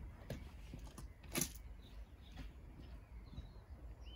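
Quiet cab with a sharp click about a second and a half in and a fainter one just before it. Faint bird chirps sound outside later on.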